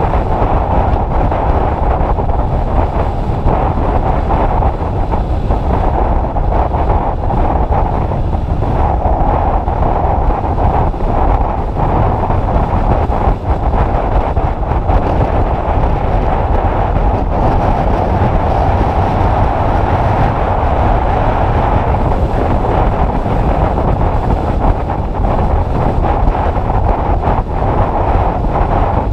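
Heavy, steady wind noise on the microphone of a moving motorcycle, a 2010 Honda CBF600, with the bike's running sound beneath it.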